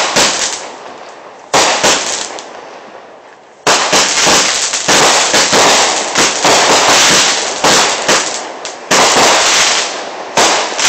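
Fireworks mortar cake firing: its shells burst overhead in a string of loud bangs, each fading away over about a second. The bangs come close together from about four seconds in until about nine seconds in, then two more follow.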